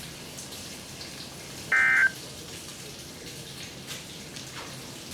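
A single short, loud burst of SAME digital data tones from a NOAA weather radio about 1.7 s in, the end-of-message code that follows the spoken warning, over a steady background hiss.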